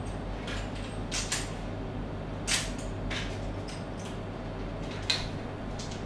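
Handling noise from lockout padlocks, a hasp and a plastic lockout tag: a few scattered small clicks and rustles, the sharpest about two and a half seconds in and again near the end, over a low steady hum.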